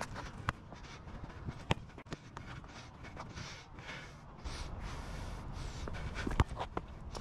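Footsteps and several sharp knocks of a soccer ball being kicked and handled on a hard court surface, the loudest knock near the end. A low rumble sets in a little past halfway.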